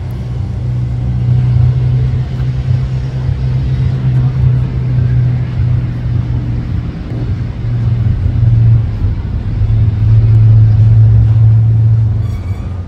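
A loud, steady low rumble that swells and dips slowly in level, with no voices over it.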